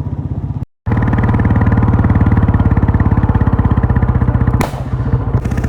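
Royal Enfield Bullet's single-cylinder engine running under way, its exhaust giving a rapid, even thump. The sound drops out briefly before one second in, and a sharp crack comes near the end.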